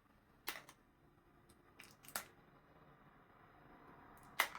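The seal on a small collectible card tin being torn off: short, sharp ripping sounds about half a second in, around two seconds in, and once more just before the end.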